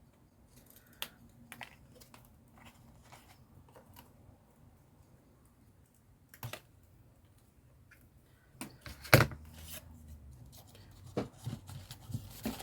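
Small scissors snipping paper or card: scattered light snips and clicks, coming faster and louder in the last few seconds, with the loudest snap about nine seconds in.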